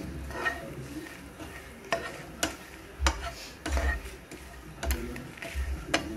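A slotted spatula stirring and scraping dry-roasting desiccated coconut, peanuts and dried red chillies around a hot nonstick frying pan. The scraping comes in strokes, with a sharp tap of the spatula every second or so.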